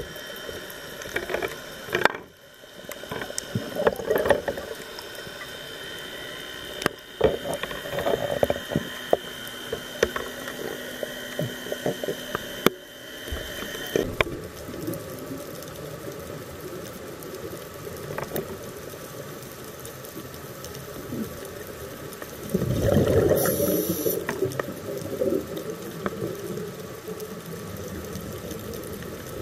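Underwater sound from a scuba diver's camera: a steady rushing hiss with scattered sharp clicks and irregular bubbling surges of exhaled regulator air, the loudest surge lasting about a second and a half roughly three-quarters of the way through.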